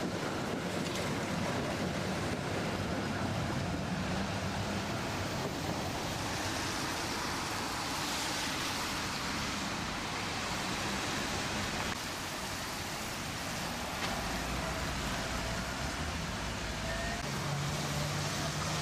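Street traffic on a wet road: a steady hiss of tyres on wet tarmac, with a low hum coming in near the end.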